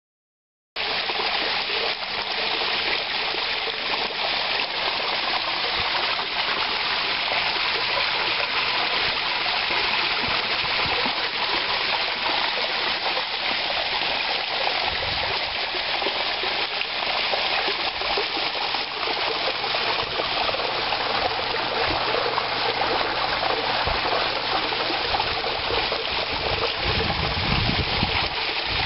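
Small garden pond waterfall splashing steadily over stone ledges into a shallow pool, starting about a second in. A brief low rumble comes near the end.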